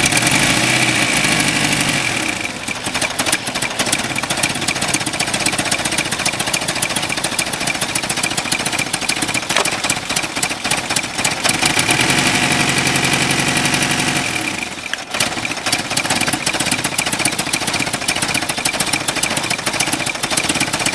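Damaged car engine running with a loud, rapid metallic knocking. It is revved twice, near the start and again about twelve seconds in.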